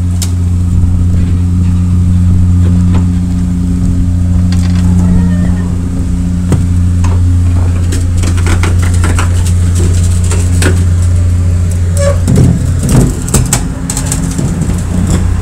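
Ferry's engine running with a loud, steady low drone. From about eight seconds in, footsteps and clanks on the metal gangway and deck plates come over it.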